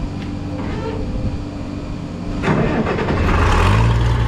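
An International Harvester 806 tractor engine is cranked and catches about three seconds in, then settles into a steady, loud idle. This is its first start after the cylinder head was re-torqued for a leaking head gasket. A steady machine hum runs underneath before the engine starts.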